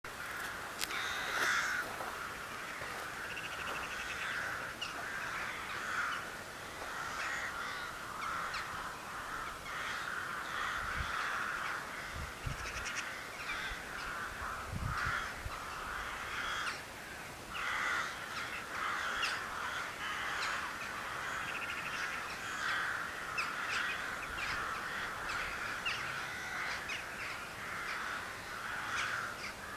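A continuous chorus of many birds calling, short overlapping calls with no break. A few low thumps come roughly halfway through.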